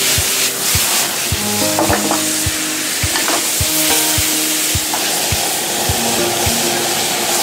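Chicken pieces sizzling hard in hot oil in a wok over a high-power gas wok burner, stirred and tossed with a wok spatula.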